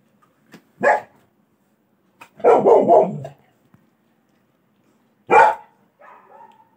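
Golden retriever barking out of a window at a puppy crying outside: a single bark about a second in, a longer double bark around two and a half seconds, another bark near five and a half seconds, then a fainter, drawn-out sound near the end.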